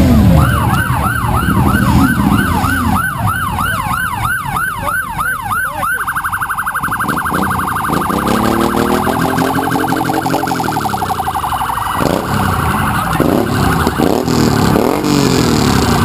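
Electronic siren of a sheriff-liveried patrol car, first yelping in quick rising-and-falling wails about three a second, then about six seconds in switching to a much faster trill. Motorcycle engines rev underneath.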